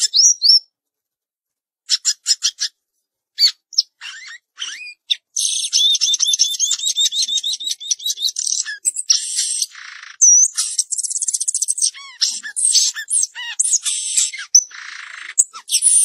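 Caged samyong garugiwa songbird singing: a few short high chirps and trills at first, then from about five seconds in a fast, nearly continuous run of rapid high notes and trills.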